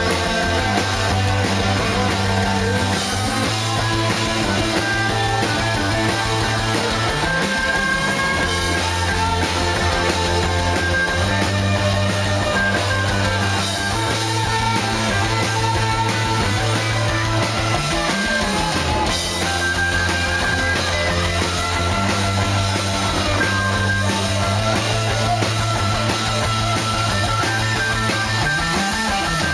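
Live rock band playing loudly: electric guitars over a repeating bass line and a drum kit.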